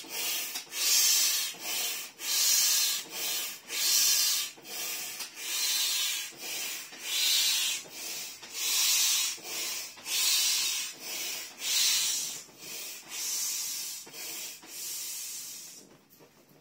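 Hand air pump being worked to inflate a vinyl inflatable tiger pool toy: rhythmic hissing strokes of air, a bit more than one a second, alternating louder and softer, stopping just before the end.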